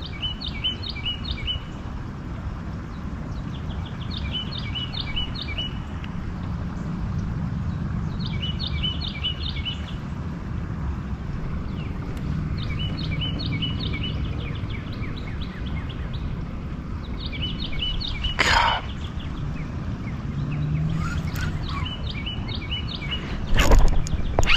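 A songbird repeats a short phrase of quick high notes about every four seconds, over a steady low rumble of outdoor background noise. A single sharp knock sounds about three-quarters of the way through, and a few more come near the end.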